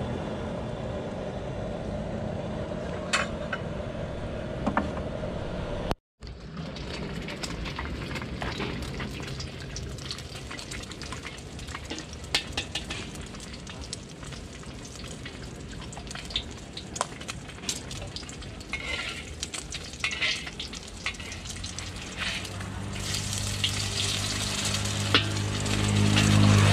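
Egg frying in hot oil in a large steel wok, sizzling, with a metal spatula scraping and clicking against the wok. Before a cut about 6 s in, noodles are being tossed in the wok over a steady low hum, and a low hum swells again near the end.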